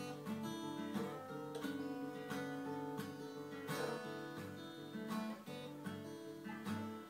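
Acoustic guitar strummed in a steady rhythm of chords, with no singing, the closing bars of a song. The last strum comes just before the end and rings off.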